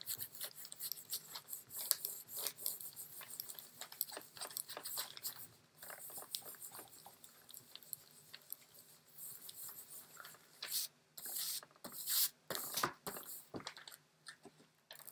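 Baren rubbed in quick circles over a sheet of acetate on newsprint laid on an inked linocut block, burnishing the paper to take up the ink. It makes a dense, scratchy rubbing of short strokes, which become fewer and louder near the end.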